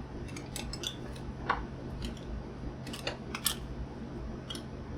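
Scattered light clicks and clinks of small metal pieces and hand tools being handled, sharpest about one and a half seconds in and again around three and a half seconds, over a steady low hum.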